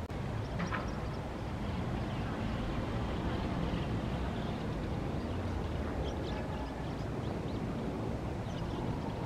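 Steady low rumble of jet airliners passing high overhead, with a few faint high chirps.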